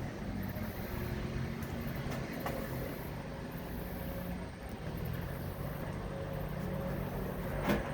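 Steady low mechanical hum, like an engine running at a distance, with a faint high thin tone above it.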